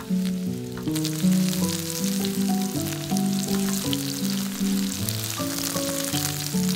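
Zucchini pieces sizzling and crackling as they fry in hot oil in a pan and are turned with a spatula; the sizzle swells about a second in. Background music with a gentle melody plays underneath.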